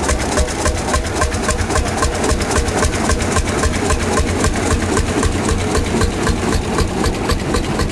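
Engine of a vintage steel-wheeled tractor running slowly, with a steady, even beat of firing strokes.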